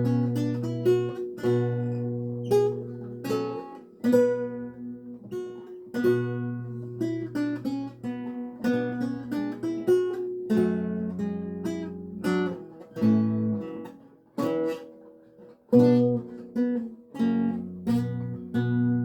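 A 7-course Renaissance lute tuned to A=415, played solo: single plucked notes and chords ring and fade over low bass notes. The playing eases into a brief lull about three-quarters of the way through, then resumes with a strong plucked chord.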